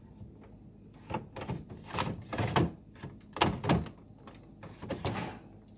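Hollow plastic knocks and clunks as a new refrigerator water filter is handled and set into its housing. There are several sharp thunks, clustered from about two seconds in.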